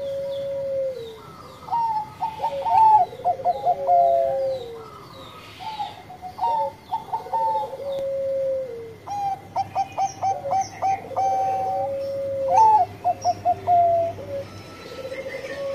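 Zebra dove (perkutut Bangkok) singing its cooing song. A phrase comes about every two seconds: a quick stuttering run of coos followed by a held, lower coo that drops at the end.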